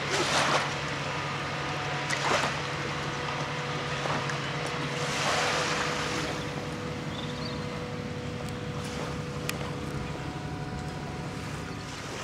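Steady low engine hum, with gusts of wind on the microphone about two seconds in and again around five seconds in.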